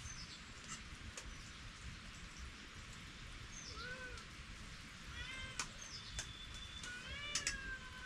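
Domestic cat meowing several times, the last a long drawn-out meow near the end.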